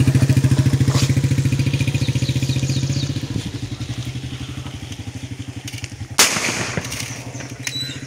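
A small engine running nearby with a fast, even chugging, easing off a little after a few seconds. About six seconds in, a single sharp bang cuts across it.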